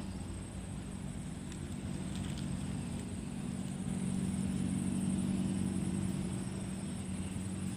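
Steady low hum of an engine running in the background, even throughout, with a thin steady high-pitched tone above it.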